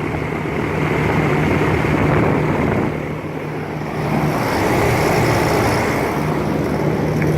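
1999 5-ton Rheem Classic central air conditioner condensing unit running: a steady rush of fan air over a constant low compressor hum.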